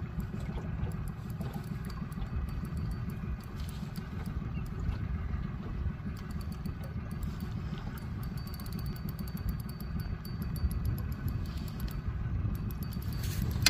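Steady low rumble of wind buffeting the microphone, with faint light ticks now and then.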